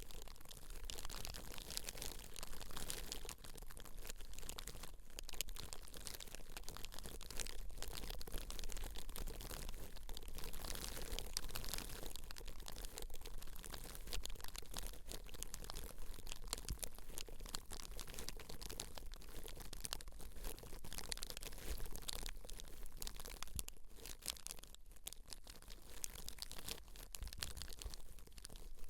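Hair and scalp being rubbed and scratched close to the microphone: a dense, continuous crackling and crunching of many fine clicks.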